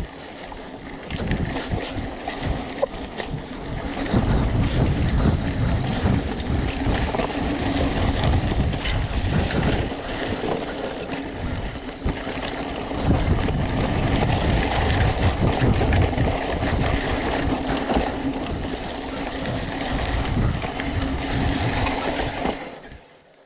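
Hardtail mountain bike ridden fast over a dirt singletrack: heavy wind buffeting on the microphone over tyre rumble, with constant rattles and knocks from the bike over roots and bumps. It gets louder a few seconds in and cuts off abruptly near the end.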